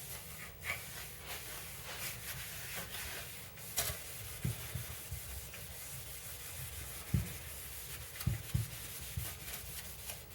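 A plastic headlight lens being scrubbed by hand with the scrubbing pad of a Meguiar's two-step headlight restoration kit: a continuous rubbing, sanding sound, with a few soft low bumps in the second half.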